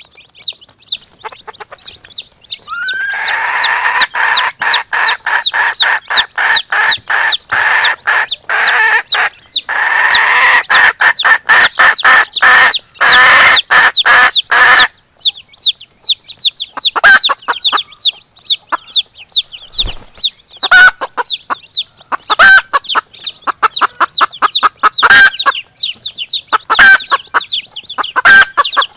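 Chicks peeping continuously, several high, falling chirps a second, with a hen clucking over them. The hen's clucking is dense and loud from a few seconds in for about ten seconds, then comes in short bouts.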